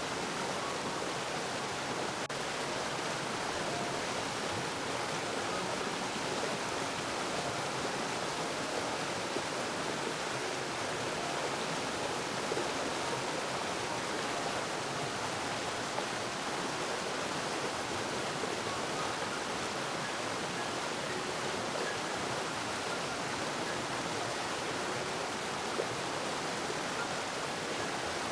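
Flowing water rushing steadily, as from a stream or waterfall, with an even, unchanging level.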